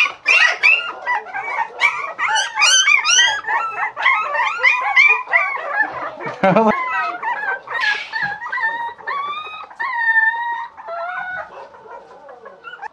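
Young puppy crying: a rapid string of short, high yelps and whimpers, then fewer, longer drawn-out whines near the end.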